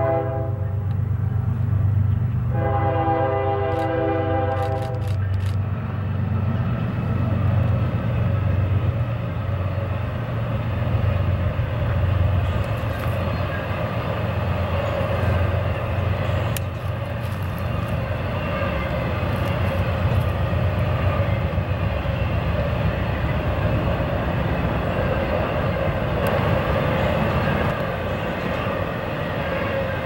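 Norfolk Southern diesel freight locomotive sounding its air horn for a grade crossing, a short blast and then a longer one about two and a half seconds in. After that comes the steady low rumble of the engines and the rolling rumble of intermodal trailer cars passing, with scattered clicks of wheels over the rail.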